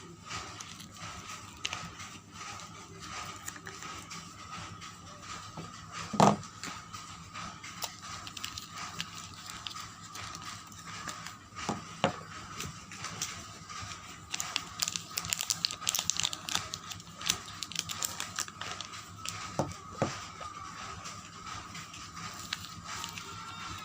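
Soap packaging being unwrapped: paper and plastic wrappers crinkling and tearing, with scattered clicks and a denser stretch of crinkling a little past the middle. There is one sharp knock about six seconds in.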